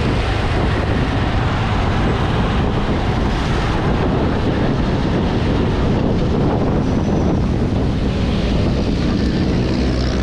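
Wind rushing over the microphone of a moving bicycle, mixed with the steady engine noise of motorcycles and cars in the traffic alongside.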